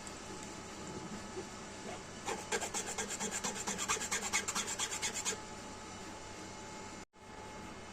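Fast rhythmic rasping strokes, several a second, for about three seconds over a steady background hum.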